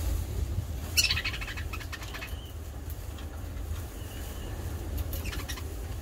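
Budgerigars chirping and chattering in a cage, with a burst of scratchy chatter about a second in and another shorter one near the end.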